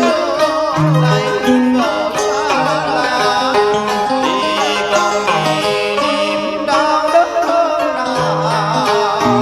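Traditional Vietnamese instrumental music from a cải lương piece: plucked strings playing a melody with bent, wavering notes over short repeated bass notes.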